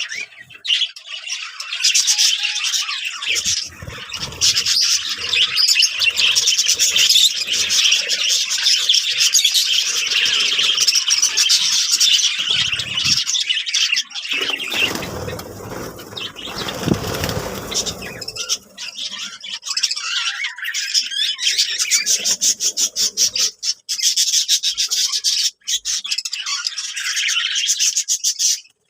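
Budgerigars chattering and warbling, a dense run of fast chirps. About halfway through, a few seconds of lower rustling noise take over while the chirping eases, then the chatter resumes.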